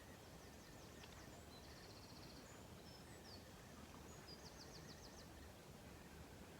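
Faint high bird trills and chirps, three or four short bursts, over a quiet, steady background hiss.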